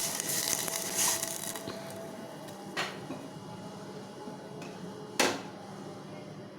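A hot pan of dry-roasted spices hissing and sizzling as the water added to it settles, the hiss dying away over the first second or two. Two short spurts of hiss about three and five seconds in.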